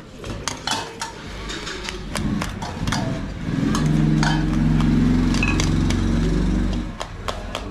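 Metal spoons and a ladle clinking and scraping against an enamel bowl and a cooking pot. A loud, low, steady hum from an unseen source rises about three and a half seconds in, is the loudest thing heard, and cuts off about a second before the end.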